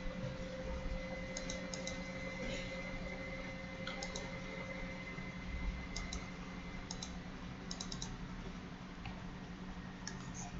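Faint clicks and taps in small clusters every second or two, over a steady low hum.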